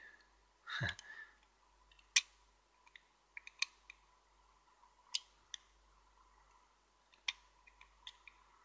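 Scattered small sharp clicks and scrapes of a snap-off craft knife's blade tip working against a plastic servo connector, prying up the tiny latch tab that holds the crimped pin in place.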